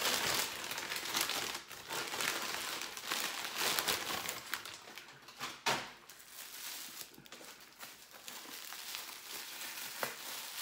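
Gift wrapping paper crinkling and crumpling as a present is unwrapped by hand, dense at first and sparser later, with one sharp crackle in the middle. Near the end it gives way to lighter rustling of tissue paper.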